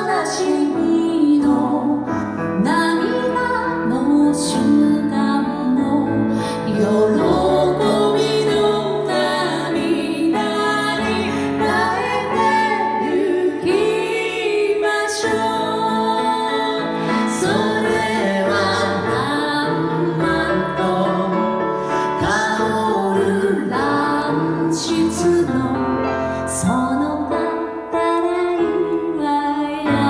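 A woman singing a Japanese song into a microphone, accompanied by piano.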